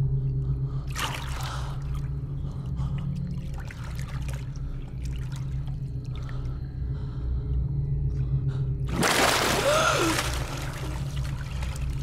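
Pool water lapping and splashing around swimmers over a low steady hum, with a brief splash about a second in and a longer, louder splash about nine seconds in.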